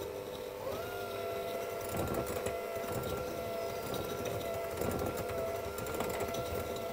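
Electric mixer running as it creams butter and sugar in a bowl: a steady motor whine that steps up in pitch about a second in as the speed is raised, then holds, with the beaters rattling.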